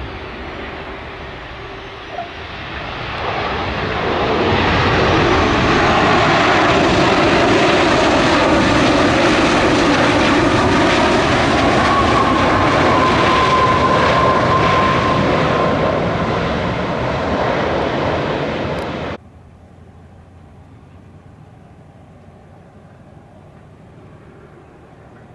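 A Boeing 737 airliner's twin jet engines running loud as it moves along the runway. The sound swells over a couple of seconds, then holds steady, with a high whine joining midway. It cuts off suddenly near the end, leaving only faint background hum.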